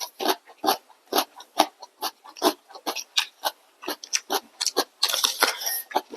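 Close-miked eating sounds of noodles and side dishes: wet chewing and mouth smacks about two or three a second, with a longer noisy stretch about five seconds in.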